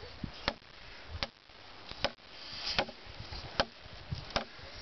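Busse BWM, a large fixed-blade knife, chopping into a wooden 4x4: six sharp strikes, about one every three quarters of a second.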